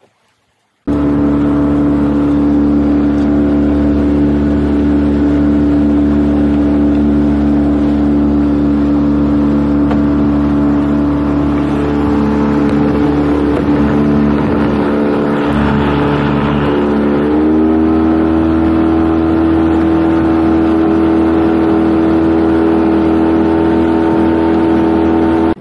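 Outboard motor pushing a small open boat along at speed, running steadily over wash and wind noise. The engine note starts suddenly about a second in and steps up in pitch a little past halfway.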